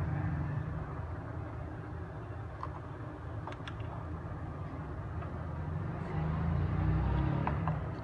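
A steady low background rumble that swells for about a second near the end, with a few faint light clicks as small wire connectors inside a Bluetooth speaker are handled and plugged in.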